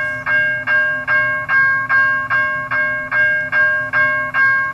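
Railroad crossing bell ringing steadily at about two and a half strokes a second, each stroke ringing on into the next, over a steady low hum.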